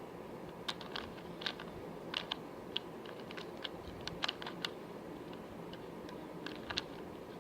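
Plastic Rubik's Cube layers being turned by hand: quick runs of small sharp clicks, with a pause of about two seconds before a few more clicks near the end.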